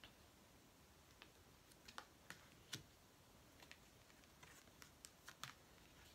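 Near silence with faint, irregular small clicks of oracle cards being handled and turned over.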